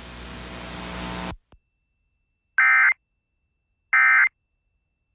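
Radio hiss cuts off sharply, then two short buzzy EAS end-of-message data bursts sound, a little over a second apart. The bursts signal the end of the weather alert broadcast.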